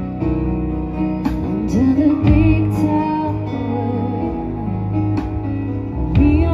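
A live band playing an amplified song, with electric guitars, drums and keyboard, and a woman singing into a microphone.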